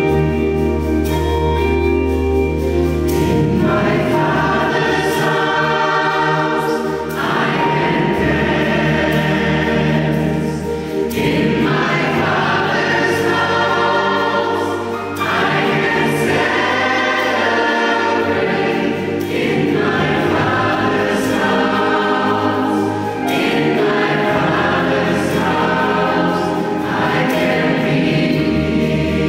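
Gospel choir singing live in full harmony with band accompaniment: many voices holding long chords over a steady bass line and drums.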